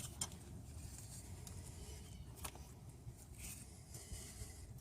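Quiet low background rumble with a few faint, isolated clicks or taps.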